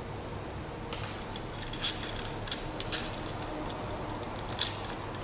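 Clips being fitted onto the metal rods of a TV antenna's reflector grid: a cluster of light metallic clicks and clinks between about one and three seconds in, and one more near the end.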